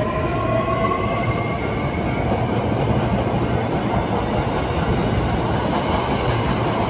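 Hankyu electric commuter train pulling out of a station: the traction motors whine, rising in pitch for about the first two seconds as it gathers speed. The whine then fades under the rumble and clatter of the wheels as the cars roll past.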